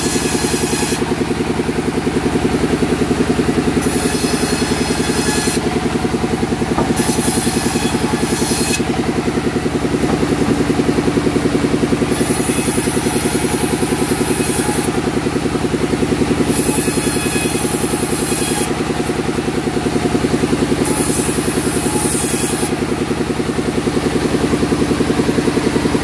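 Sawmill machinery running: a steady engine, with a high hissing rasp that comes and goes every few seconds and lasts one to three seconds each time.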